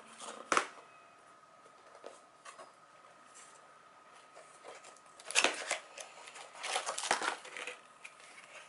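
Cardboard mailer box being handled and opened: a sharp tap about half a second in, then two bursts of cardboard scraping and rustling past the middle.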